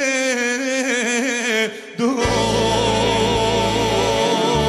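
Male voice holding a long note with vibrato over the band; the music drops away briefly just under two seconds in, then the band comes back in with bass and a wavering lead line, a Serbian folk-pop instrumental passage.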